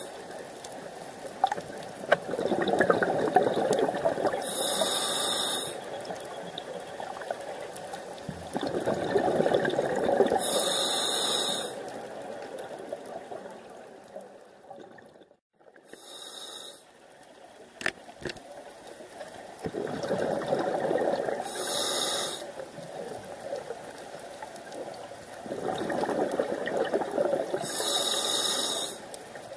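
Scuba diver breathing through a regulator underwater: a short hissing inhale about every five to six seconds, each followed by a longer rush of exhaled bubbles. About halfway through, the sound drops out briefly.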